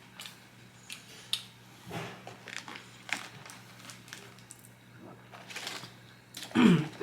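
Close-miked chewing and mouth sounds of someone eating spicy chicken nuggets: scattered crunches, clicks and wet smacks, with a louder short voice sound near the end.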